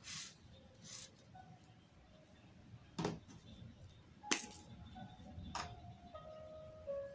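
Several sharp small clicks and knocks, the loudest about four seconds in, from a glue stick and its plastic cap being handled and set down on a tabletop while gluing crepe paper.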